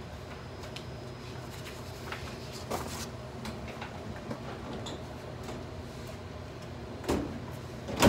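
Steady low hum of an office room with a few short knocks and rustles from handling stacks of paper at a desk; the loudest knock comes at the very end.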